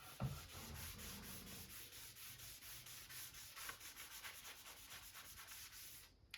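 Quick back-and-forth rubbing strokes on wood, a rag or brush working stain into a wooden beam, several strokes a second and getting a little faster, stopping suddenly near the end.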